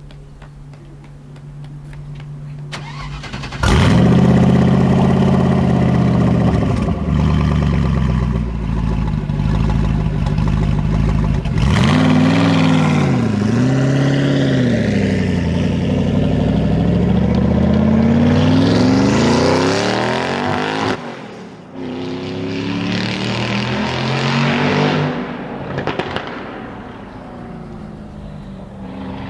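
Gumpert Apollo Sport's twin-turbo V8 cold-starting: after a low hum the engine fires about four seconds in with a loud bark and settles into a rough idle. It then gets two quick throttle blips and a long climbing rev that cuts off abruptly, and runs on more quietly near the end.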